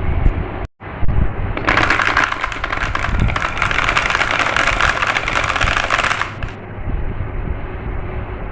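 Marbles clattering down a marble-run track: a dense rattle of rapid clicks starts about one and a half seconds in and stops after about five seconds, over a steady low rolling rumble.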